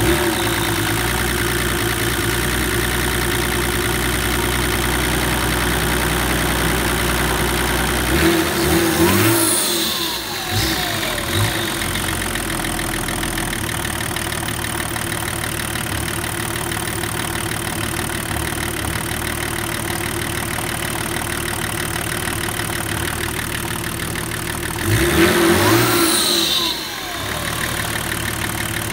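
BMW M51 2.5-litre turbodiesel straight-six idling cold on its first start, revved twice, about a third of the way in and again near the end, the revs rising and dropping back to idle each time.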